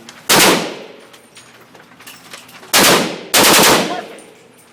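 Three pistol shots, one near the start and two more about two and a half seconds later, half a second apart, each with a reverberant tail.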